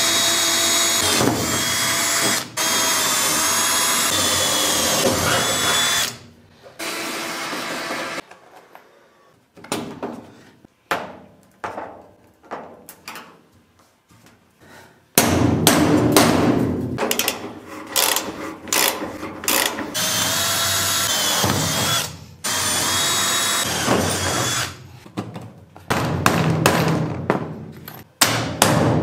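Electric drill running with a high whine that wavers in pitch. It stops after about six seconds, leaving a stretch of scattered knocks and clicks, then runs again in several bursts in the second half.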